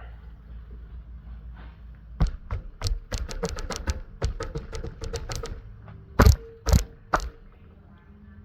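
Metal tools and small engine parts clanking and tapping during an engine teardown: a run of quick knocks, then three loud knocks about half a second apart, followed by a brief metallic ring.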